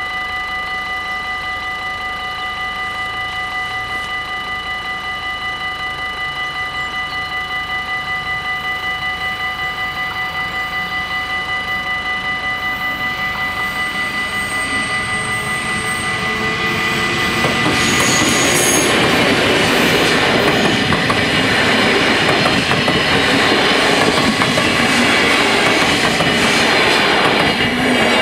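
Level-crossing warning bells ring steadily as an NS DDZ double-deck electric intercity train approaches and passes at speed. The rush of the train builds from about halfway and is loud for the last ten seconds, with a couple of brief high wheel squeals.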